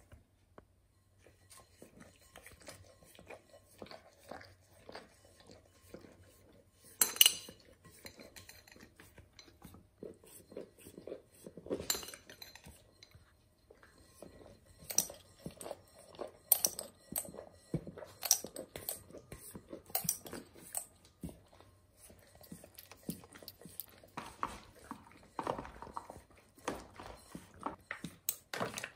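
A metal spoon scooping and tapping against plastic food tubs: a run of irregular clinks and knocks, the loudest about seven seconds in.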